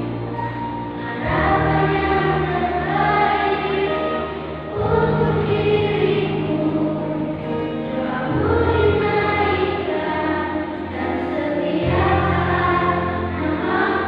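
Children's choir singing over an accompaniment of sustained low notes that shift to a new chord about every three and a half seconds.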